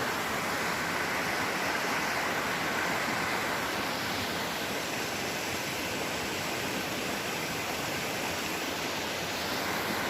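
River water rushing steadily over a rocky bed, an even, unbroken rush.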